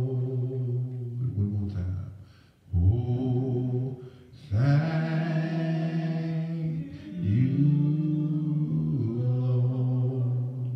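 A man singing solo and unaccompanied into a handheld microphone, in a low voice, holding long drawn-out notes with short breaks between phrases.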